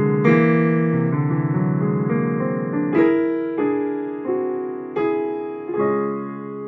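Background piano music, slow and gentle, with notes and chords struck under a second apart and left to ring out, getting softer near the end.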